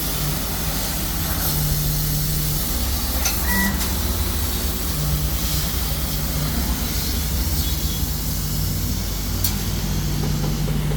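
Dual-head CO2 laser cutting machine running while cutting: a steady hum and hiss from its air compressor and exhaust blower, with a low motor tone that switches on and off every second or two as the cutting heads move.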